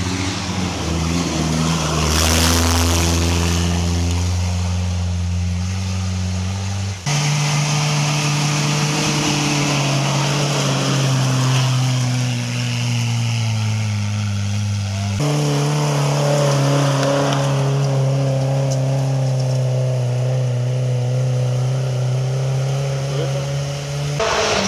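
Off-road vehicle engines running under load, their pitch sinking slowly at times. The engine sound changes abruptly twice, about a third and two thirds of the way through.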